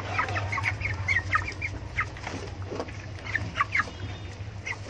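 A flock of young white broiler chickens peeping: many short, high calls that slide down in pitch, overlapping irregularly, over a steady low hum.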